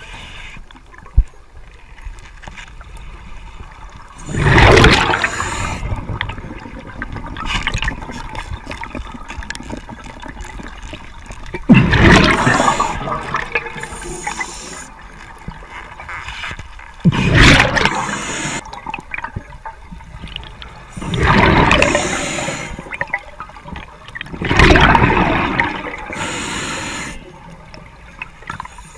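Scuba diver's exhaled bubbles rushing out of the regulator underwater in about six loud surges, roughly every four seconds, with a quieter bubbling hiss between breaths.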